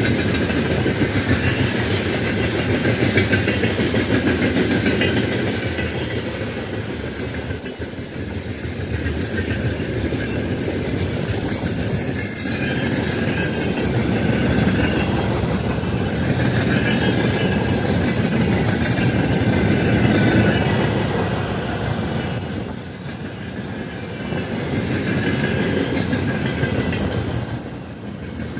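Freight train wagons rolling past close by: a steady rumble with the wheels clattering over the rail joints, swelling and easing as the cars go by.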